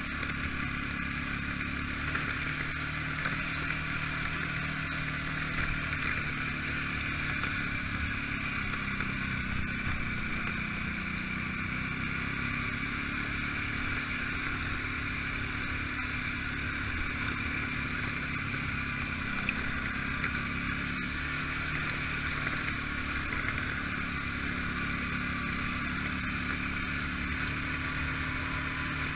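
ATV engine running at a steady speed, holding one even pitch throughout.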